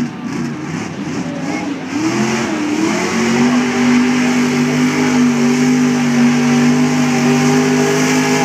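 Lifted mud bog truck's engine revving up and down, then held at high, steady revs from about three seconds in as the truck drives through the dirt pit.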